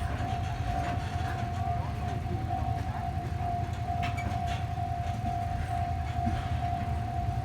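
A steady single-pitched alarm tone sounds without pause over a low, continuous rumble.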